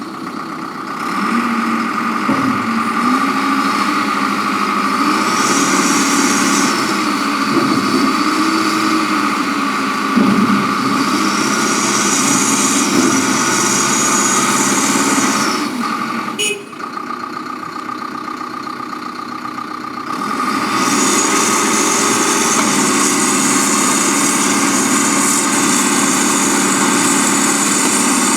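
Backhoe loader running, its engine pitch rising and falling over the first half with a high whine coming and going. About halfway through the sound cuts out sharply and runs quieter for a few seconds, then comes back steadier and louder.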